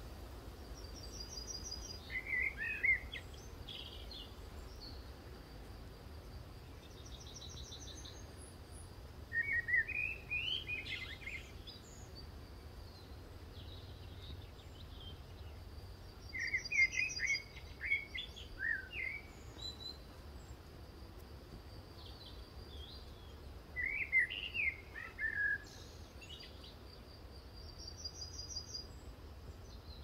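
Wild birds singing in a forest: short, quick, warbling song phrases repeat about every seven seconds, with a higher buzzy trill from another bird in between. Underneath is a faint steady high tone and low background rumble.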